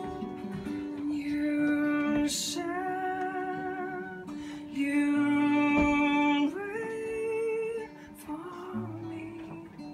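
Live acoustic song: strummed acoustic guitar and fiddle under a voice singing long held notes with vibrato. The singing stops about eight seconds in, leaving the instruments.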